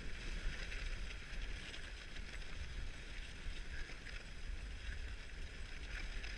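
Dog sled running over snow: a steady hiss of the runners on the snow over a low rumble.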